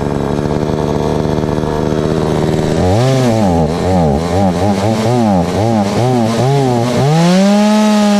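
Chainsaw engine idling steadily, then from about three seconds in revving up and down over and over, with a rise to a high, held rev near the end.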